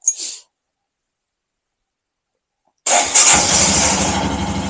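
Silent for about three seconds, then the Royal Enfield Himalayan 411's single-cylinder engine starts abruptly. It runs a little louder at first, then settles to a steady, pulsing idle.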